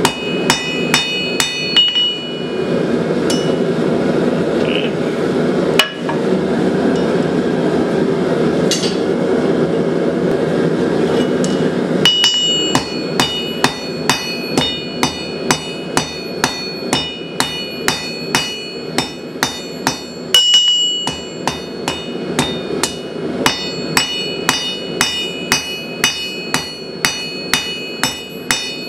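Blacksmith's hammer striking hot steel on an anvil, quick repeated blows with a bright ringing after each. The hammering stops for about ten seconds in the first half, when a steady rushing noise takes over, then resumes at about two to three blows a second.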